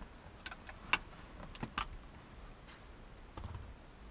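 Seatbelt buckle assembly being handled and threaded back through the seat, giving a few light plastic-and-metal clicks and rattles. The sharpest click comes about a second in, and there is a dull bump about three and a half seconds in.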